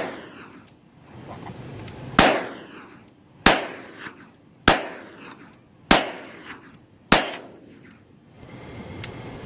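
Revolver fired five times at a steady pace, about one shot every 1.2 seconds, each shot loud and sharp with a long echoing tail. One more shot lands right at the start.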